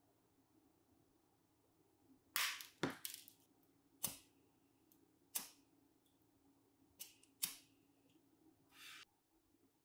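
Sharp metallic clicks and snaps of steel hand tools and small metal hardware being handled, a cluster of three about two and a half seconds in and then single clicks, two of which leave a brief ringing tone. A short scraping hiss comes just before the end.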